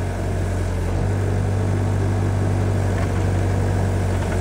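Iveco diesel engine of a tracked digger derrick running at a steady speed with a constant low hum, driving the hydraulics as the boom's pole claw is worked.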